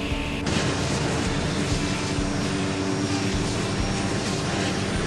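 Subway train running fast through a tunnel: a steady rumble and rushing noise that suddenly gets brighter and louder about half a second in.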